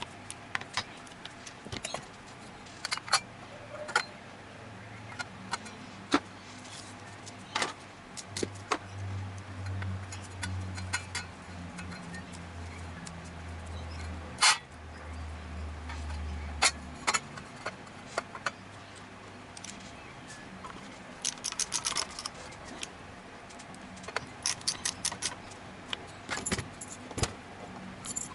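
Small metal parts and tools clicking and clinking as they are handled, in irregular sharp taps, with a low drone for several seconds in the middle.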